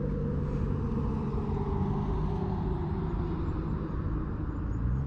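Low, steady rumble of a passing vehicle's engine.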